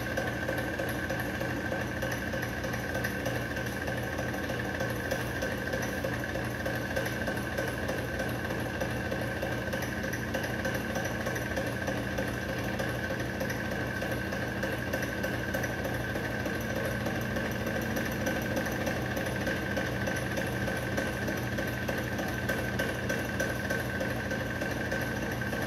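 Antique hot-air engine lamp fan running steadily, its heat-driven engine and spinning blade giving a constant mechanical hum with a fast, even beat.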